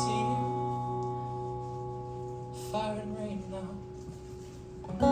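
Acoustic guitar chord ringing out and slowly fading, with a short sung phrase about three seconds in; a fresh strum comes in near the end.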